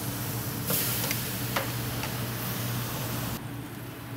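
Flank steak sizzling on hot grill grates over direct flame, with a few sharp clicks of metal tongs as the steaks are turned. A steady low hum runs underneath, and the sizzle drops off about three and a half seconds in.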